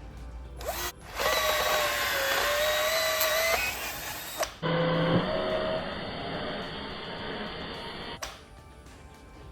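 Power drill drilling out a wooden plug stuck inside a hole saw. It runs in two bursts: the first, from about a second in, whines and dips slightly in pitch under load; the second is steadier and stops near the end.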